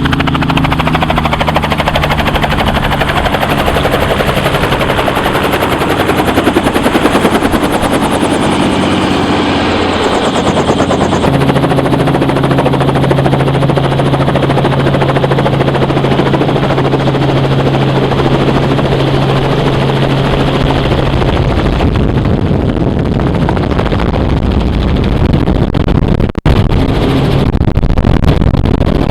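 Helicopter drone with continuous rapid machine-gun fire over it. The low hum shifts in pitch about ten seconds in, and the sound briefly cuts out near the end.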